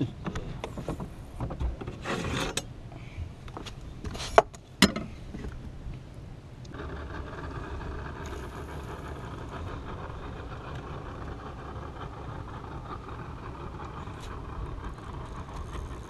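Knocks, rustling and clatter as a bass is handled on a fishing boat's deck, with two sharp clicks about four and a half seconds in. About seven seconds in, a steady motor hum starts abruptly and keeps going.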